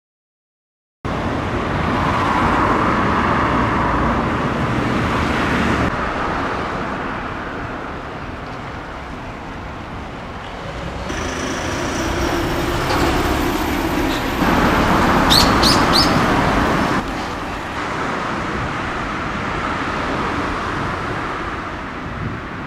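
Road traffic noise, a steady rushing that swells and fades as vehicles pass, with a few quick bird chirps about 15 seconds in.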